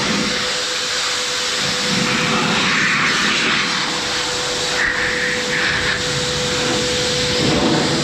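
Electric car-drying blower running steadily: a loud rush of air with a constant motor whine, blasting beaded water off the car's paint.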